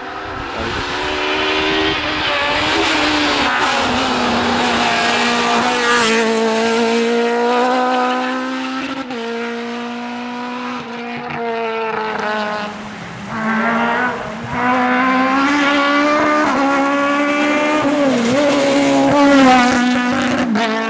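Rally cars driven flat out past spectators on a tarmac stage, engines revving hard, their pitch climbing through the gears and dropping on shifts and lifts several times.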